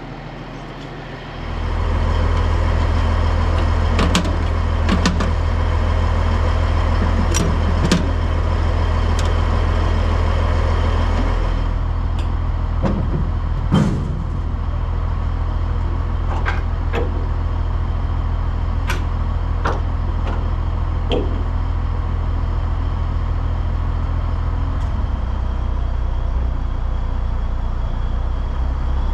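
Diesel semi-truck engine running steadily, getting louder about a second and a half in and holding there, with a few short clicks and knocks over it.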